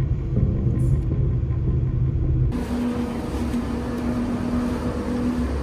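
Car driving up a mountain road heard from inside the cabin, a steady low rumble. About two and a half seconds in it cuts abruptly to a steady hiss with a constant droning tone, like machinery humming.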